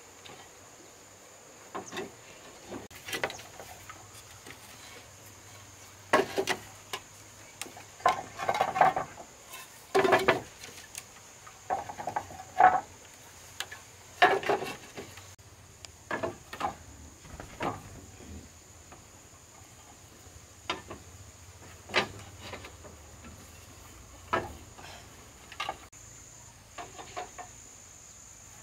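Irregular knocks and clatter of hard objects being handled and set down, some in quick runs, over a steady high-pitched insect drone.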